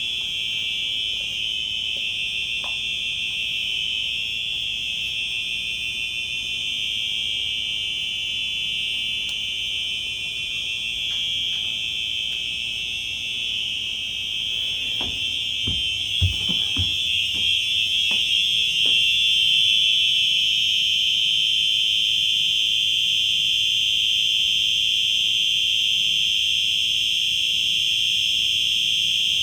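Two Simplex 4903-9236 fire alarms sounding continuously together in one steady, high tone, their slightly different pitches beating against each other for an eerie, wavering sound. A few knocks come about fifteen to nineteen seconds in, after which the alarms are louder.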